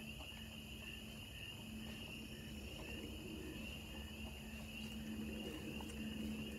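Night insects, crickets or similar, trilling steadily at a single high pitch. A second, fainter call pulses about twice a second.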